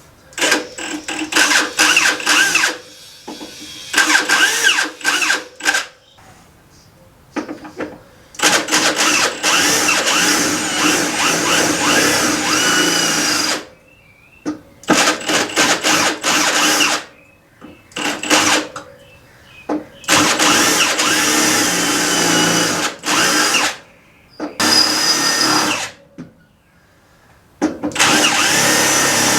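Electric drill running in repeated bursts of a few seconds with short pauses between them, drilling through the sheet-steel cowl of a 1966 Mustang to cut out the spot welds. The pitch dips and recovers slightly as the bit loads up in the metal.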